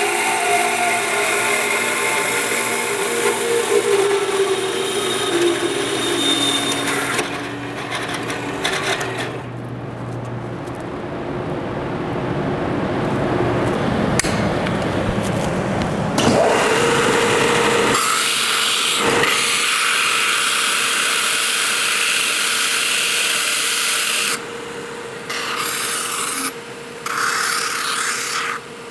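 Horizontal metal-cutting bandsaw running as it cuts through a 304 stainless steel swedge reducer, then a belt sander grinding the cut stainless edge flat. The grinding stops and starts briefly a few times near the end.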